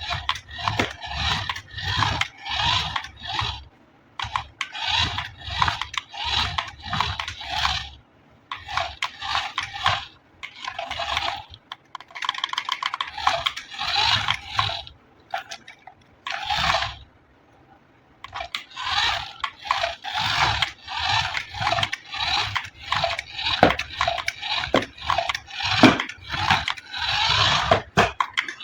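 Plastic and cardboard toy packaging being handled: a busy run of short crinkling and scraping sounds, with a brief pause about two-thirds of the way through.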